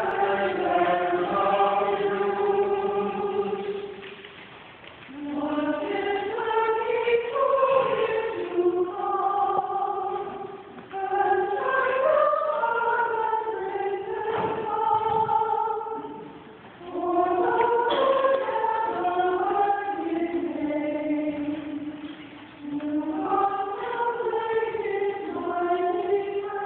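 Church choir singing a hymn, line by line, with a short breath between lines about every five to six seconds.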